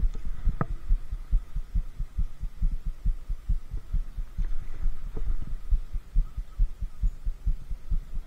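Irregular low thudding rumble on the action camera's microphone, several thuds a second, with a faint steady hum and a couple of sharp clicks.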